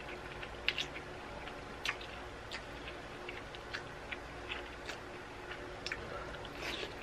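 Close-up eating sounds of a person taking in and chewing bibim-myeon noodles: soft, irregular wet clicks and smacks from the mouth, about one or two a second.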